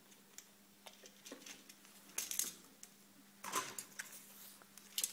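Light, scattered clicks and rustles of film being handled and fastened onto a metal take-up reel of a Marin film projector, with the reel knocking faintly now and then.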